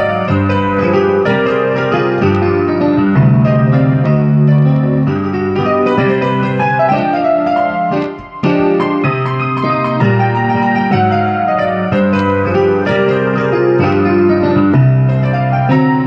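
Electronic keyboard played with both hands: sustained chords over a moving bass line, with a momentary break about eight seconds in.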